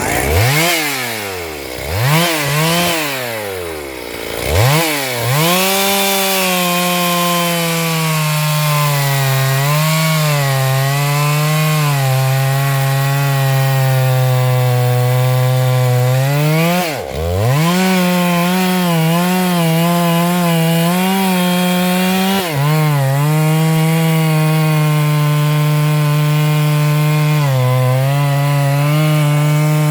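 Stihl MS 382 two-stroke chainsaw blipped three times, then held at full throttle cutting into a large sengon trunk, its pitch sagging and recovering as the chain loads in the wood. About 17 seconds in the engine drops off briefly and revs straight back up into the cut.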